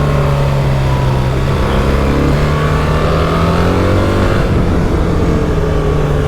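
BMW R 1300 GS boxer-twin engine pulling hard on track, its pitch rising under acceleration, dropping sharply at an upshift about four seconds in, then climbing again.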